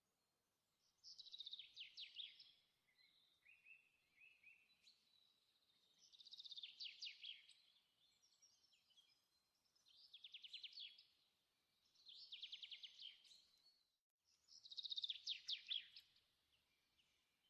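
A songbird singing: five rapid trilled phrases, each about a second and a half long, falling slightly in pitch, with soft chirps between them.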